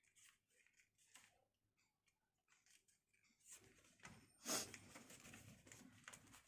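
Near silence with faint rustles and clicks, then short breathy rushes of noise, the loudest about four and a half seconds in: a person breathing and sniffing with a watering nose while handling paper.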